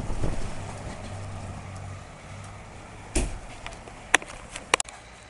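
Thunder rumbling, loudest at the start and dying away over about two seconds. Then come a sharp knock and a few short clicks from the camera being handled as it swings round.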